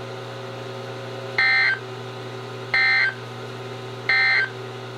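Three short bursts of EAS digital data tones (SAME) from a NOAA Weather Radio broadcast, about 1.3 s apart, over a steady radio hum and hiss. They are the End of Message signal that closes the alert.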